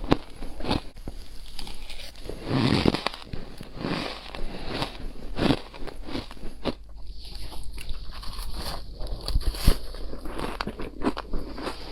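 Close-miked biting and crunching of powdery chunk ice: a run of irregular crisp crunches as the ice is bitten and chewed, with a heavier crunch about two and a half seconds in.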